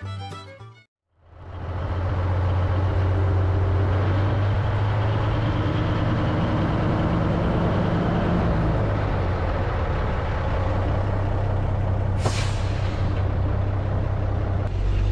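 Big truck's engine running steadily with a deep hum, heard from the cab, and a short hiss of released brake air about twelve seconds in.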